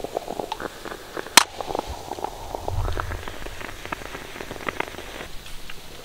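Bialetti moka pot on a gas burner sputtering and gurgling as the coffee rises: a rapid, irregular crackle, with one sharp metal click of the hinged lid about a second and a half in.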